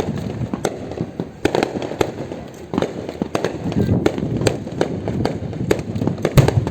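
Fireworks going off in quick, irregular succession, sharp bangs and crackles several times a second, with the loudest bang near the end.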